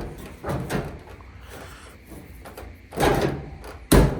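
Clunks and knocks of a clothes dryer's panels being fitted back into place, with a louder clunk about three seconds in and a sharp bang just before the end.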